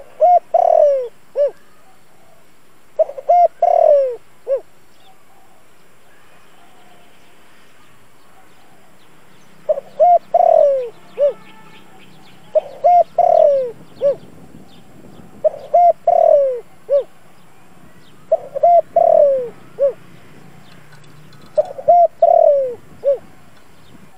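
Spotted dove cooing seven times, a few seconds apart, with a longer pause after the second. Each phrase is a couple of short notes, a longer falling coo and a short closing note. This is the call of a decoy male used to stir up wild spotted doves.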